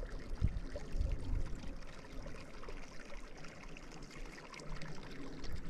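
Small creek running and trickling, a steady water sound, with a few low thumps in the first second and a half.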